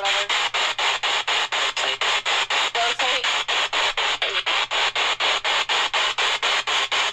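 Spirit box (ghost box) radio sweeping through stations: a steady hiss of static chopped about five times a second, with a brief voice-like fragment about three seconds in.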